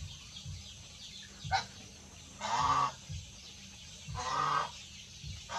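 Muscovy ducks calling: one short sharp call about a second and a half in, then harsh calls of about half a second each, repeating every second or two.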